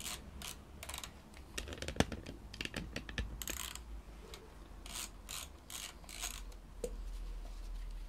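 Hand ratchet wrench clicking in short runs as a wiring-harness bolt is undone. There is a sharp knock about two seconds in.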